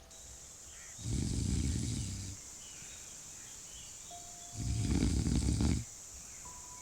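A person snoring: two long, rattling snores about three and a half seconds apart.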